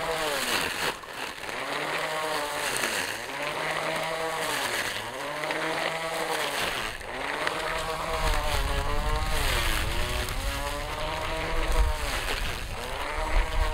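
Cordless battery grass trimmer's electric motor whining as it cuts tall grass and weeds. Its pitch dips and recovers over and over as the cutting head bogs down in the thicker growth.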